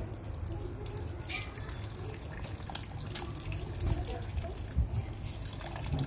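Thin stream of water trickling and dripping into a water-filled plastic basin, with a few sharper splashes from a rose-ringed parakeet bathing at its edge.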